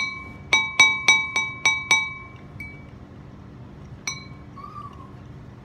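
An eating utensil clinking against a dish, each strike ringing briefly at the same pitch: one clink, then six quick clinks about four a second, and a single clink about four seconds in.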